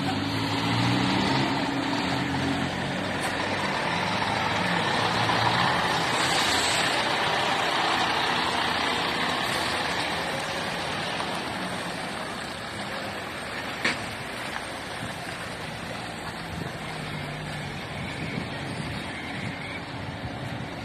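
Scania P400 fire engine's diesel engine running as the truck pulls away and drives slowly past close by, loudest as it goes by and then fading. A single sharp click about two-thirds of the way through.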